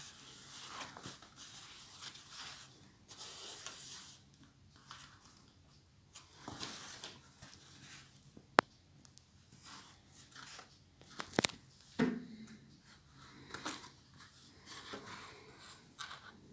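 Hands handling a crushed top hat: soft rustling and scraping, with a sharp click about halfway through, then two quick knocks and a thump a few seconds later.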